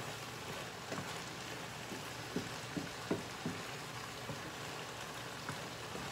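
Squash and onions cooking down in bacon grease in a cast-iron pot: a steady sizzle with scattered pops and crackles.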